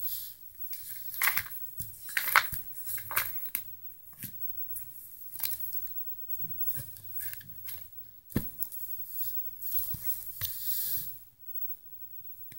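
Plastic binder sheets and a ring binder being handled and flipped shut: irregular crinkling and crackling rustles, with a dull knock about eight seconds in.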